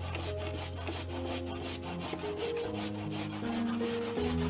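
A peeled raw potato rubbed back and forth on a perforated hand grater, a rasping scrape in a steady rhythm of about five strokes a second. Light background music with piano notes plays underneath.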